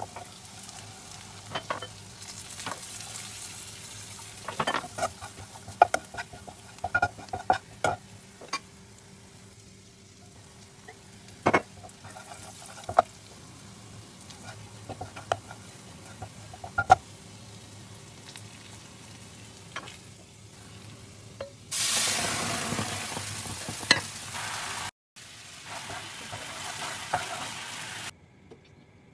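Minced garlic sizzling in oil in a nonstick frying pan, with a utensil clicking and scraping against the pan as it is stirred. About three quarters of the way through, a much louder sizzle sets in, then stops shortly before the end.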